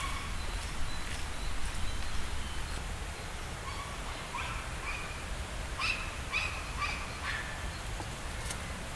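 Birds chirping in short, scattered calls, most of them in a cluster in the middle of the stretch, over a steady low rumble of wind on the microphone.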